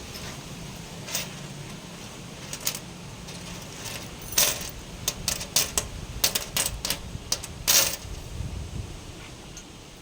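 A run of light metallic clinks and knocks, a few scattered at first and then many in quick succession for about four seconds, from steel parts being handled or tapped together.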